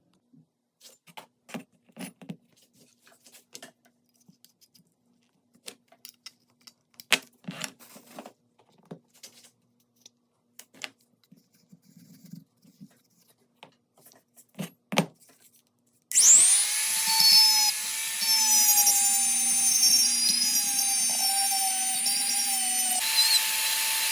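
Scattered clicks and taps, then an electric power tool switches on about two-thirds of the way through and runs steadily with a high whine, its pitch dipping and shifting slightly a couple of times.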